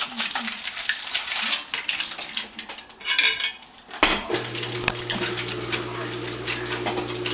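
Kitchen utensils clinking and scraping against a dish and pan while cooked fish is lifted into a serving dish. About four seconds in, a steady low hum starts under the clatter.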